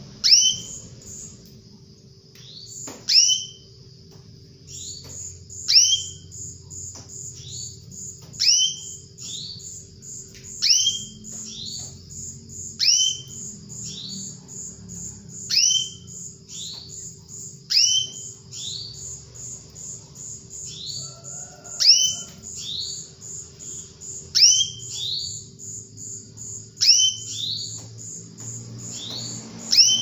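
Female canary giving loud, downward-sliding whistled calls about every two to three seconds, often in quick pairs: the hen's call to a male, used as a lure to set a silent male canary singing. A fast, high chirping trill runs steadily behind the calls.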